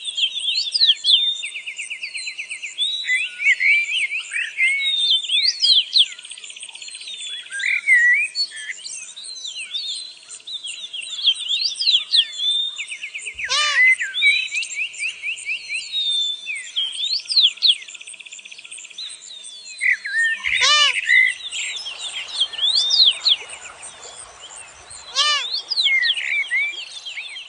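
A chorus of small songbirds overlapping throughout: rapid trills, rising and falling whistles and chirps. Three times a sharper call cuts through that drops much lower in pitch.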